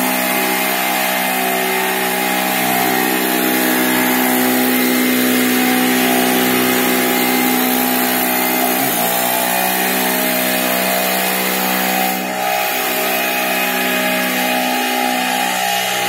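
Small portable petrol generator running steadily at constant speed together with the electric axial blower fan it powers, which inflates a homemade hovercraft; a steady engine-and-fan drone with a brief dip in pitch about nine seconds in and a short knock about twelve seconds in.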